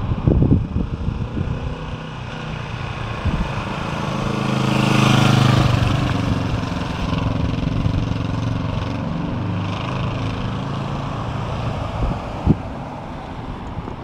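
Honda CB450 K5's DOHC parallel-twin engine as the motorcycle rides past: its note grows to its loudest about five seconds in, then fades as it rides away. Low buffeting from wind on the microphone in the first second.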